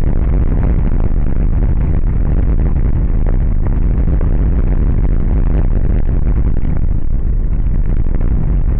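Car driving, heard from inside the cabin: steady engine and tyre noise on a rough asphalt road, with a few light knocks.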